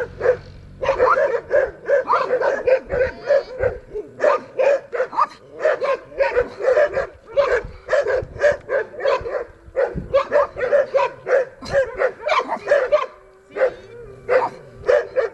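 Dog barking and yipping in fast runs of about four to five barks a second, broken by a few short pauses and a longer lull near the end.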